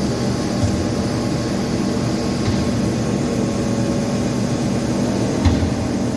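Alesamonti Milling M1 travelling-column CNC milling machine running with a steady mechanical hum, and two short knocks, one near the start and one near the end.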